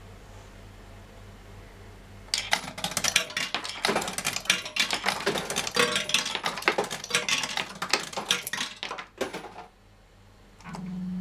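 The reels of a JPM Super 2p Eachway Shuffle fruit machine spinning with a dense, rapid mechanical clatter for about seven seconds, then stopping. A low steady hum comes first, for about two seconds.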